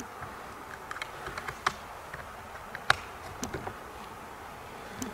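A series of scattered light clicks and taps over a low steady hiss, the sharpest single click about three seconds in.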